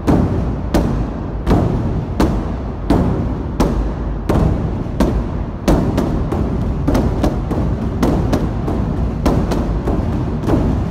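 Several large Chinese barrel drums struck together with wooden sticks, deep booming strokes over a constant low rumble. The beat is steady at first, about three strokes every two seconds, then quickens to about three a second halfway through.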